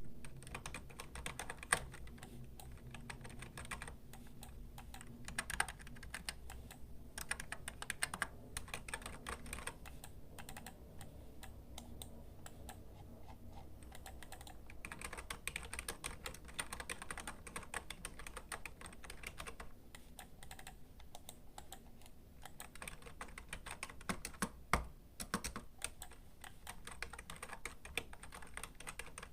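Typing on a computer keyboard: a steady, quick run of key clicks, with a few harder keystrokes standing out now and then.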